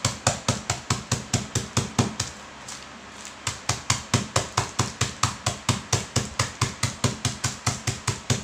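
Rapid, even pounding, about five strikes a second, as packaged biscuit crackers are crushed into crumbs against a tabletop with a plastic container. The pounding pauses briefly about two seconds in, then resumes.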